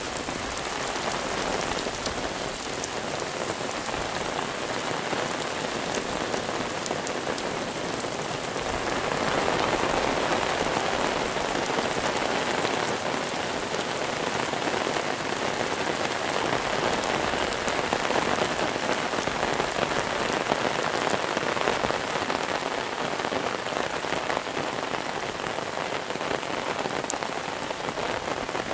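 Steady monsoon rain falling: a dense, even hiss with scattered drop ticks, growing a little heavier about nine seconds in.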